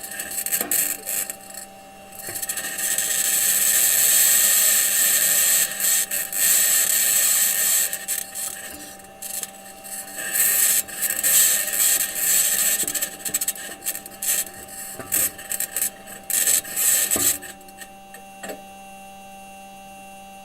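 Perseverance Mars rover's metal wheels driving over rocky ground, heard through its onboard microphone: loud grinding and scraping with frequent knocks over a steady electrical hum. The knocks seem to be the wheels bumping over rocks. About seventeen seconds in the scraping falls away, leaving the hum and a couple of clicks.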